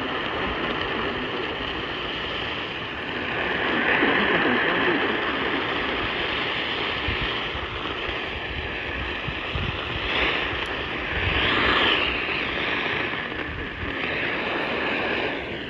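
Static hiss from a weather radio receiver tuned to a weak NOAA Weather Radio signal. The noise swells louder about four seconds in and again near the ten- to twelve-second mark.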